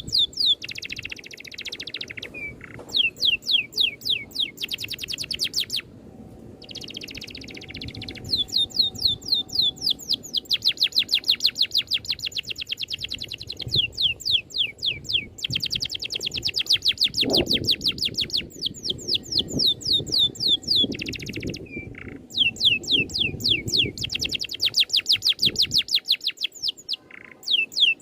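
A songbird singing a fast rolling trill: runs of rapid, evenly spaced downward-sweeping whistled notes lasting a few seconds each, broken by short pauses and brief harsh, buzzy notes.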